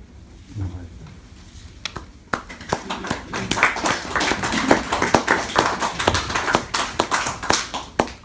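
A small audience applauding after a poem, the clapping starting about two seconds in and dying away near the end.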